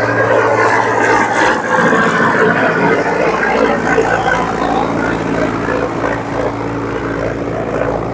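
Solis 5515 4x4 tractor's four-cylinder diesel engine running steadily under load while it pulls a laser land leveler, louder as the tractor passes close and easing off slightly as it moves away.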